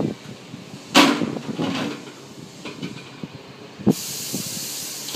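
Plastic parts of a slush machine being handled as its bowl and auger are pulled off: a loud plastic clatter about a second in, quieter knocks, then a sharp click near four seconds followed by a steady hiss.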